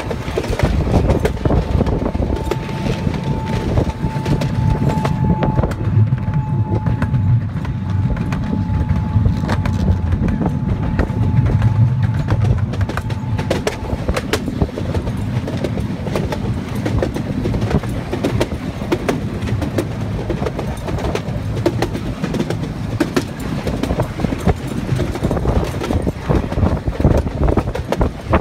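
Chance Rides C.P. Huntington amusement-park train running along its narrow-gauge track, heard from on board: a steady low rumble with frequent sharp clicks of the wheels over the rail joints. A thin steady whine sounds along with it for about ten seconds in the first half.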